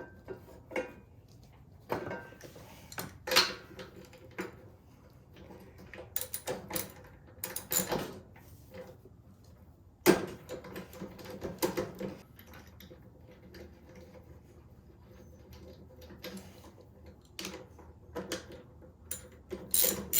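Irregular metal clicks and clinks of hand tools, a spark plug socket and wrench, being worked on a lawn mower engine while its spark plug is changed.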